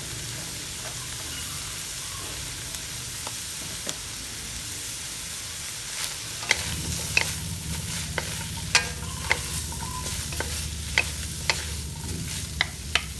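Chicken stir-fry sizzling steadily in a hot pan. From about six seconds in, a spatula clinks and scrapes against the pan a dozen or so times as the food is stirred.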